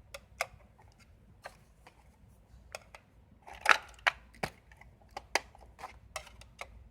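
Irregular clicks and knocks of small objects being handled, a dozen or so sharp ticks with the loudest knock about three and a half seconds in.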